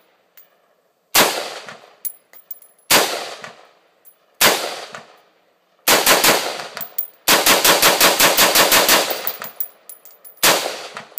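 Black Rain Fallout 15 AR-15 rifle firing: three single shots about a second and a half apart, then a quicker cluster, then a rapid string of about fourteen shots, and one last shot near the end.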